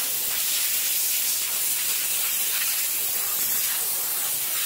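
Compressed-air blow gun hissing steadily as it blows sawdust off a freshly sawn box elder slab.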